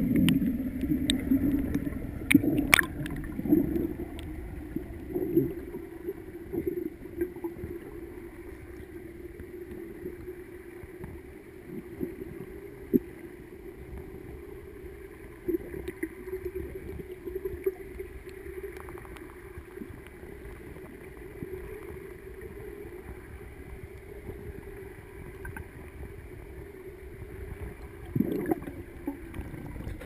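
Underwater ambience picked up by a submerged camera: a steady muffled low hum with scattered clicks and bubbly gurgles, busier in the first few seconds and again near the end.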